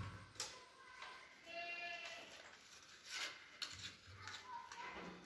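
Crinkling of packing paper and small clicks as a new sneaker is handled and its paper stuffing pulled out. About a second and a half in, a short high call held on one pitch sounds for under a second.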